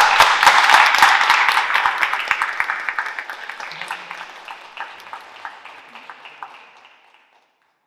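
Audience applauding, dense and loud at first, then thinning to scattered claps and dying away about seven seconds in.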